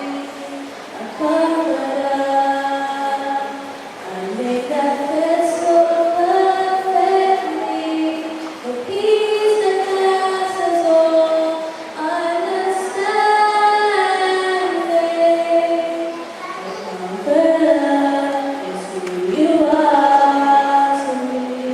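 Slow singing with long held notes gliding from one to the next, in a high voice or voices.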